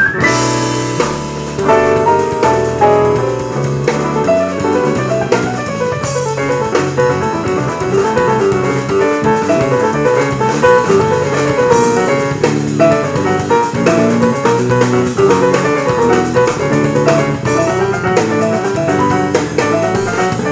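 Jazzy instrumental hip-hop music with a drum-kit beat, piano and guitar over a steady low bass line.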